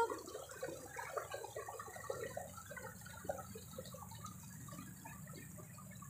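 Small rocky mountain stream gurgling and trickling over stones: a continuous, irregular patter of little bubbling notes over a low steady rush.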